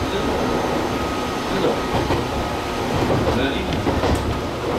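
Gakunan Railway electric railcar running between stations, heard from the cab: the steady rumble of wheels on rail and the car in motion.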